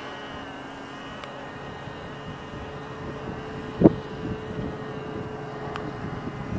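Traxxas T-Maxx 2.5 RC truck's small two-stroke nitro engine running steadily far off as the truck drives away, a faint, even whine. A brief low thump just under four seconds in.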